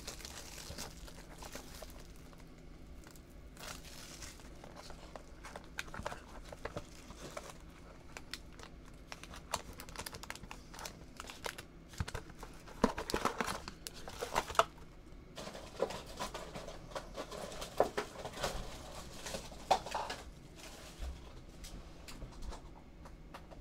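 Plastic shrink-wrap and foil wrapping on a box of trading cards crinkling and tearing as it is unwrapped and handled, in scattered rustles and crackles.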